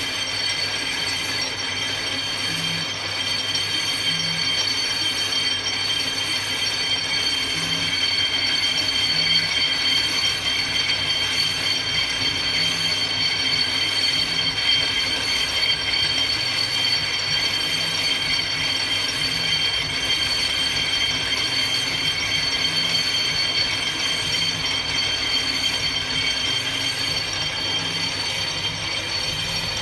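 Brake disc being skimmed on a disc-cutting lathe: the cutting tool runs across the turning disc with a steady high-pitched squeal over the machine's mechanical running.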